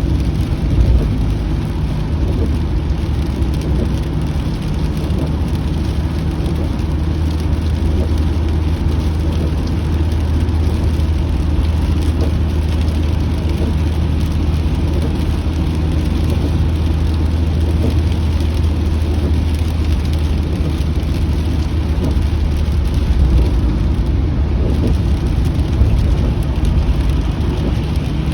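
Car interior while driving in the rain: a steady low road and engine rumble under an even patter of rain on the car.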